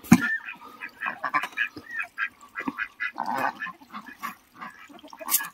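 Domestic ducks quacking, many short calls overlapping one after another.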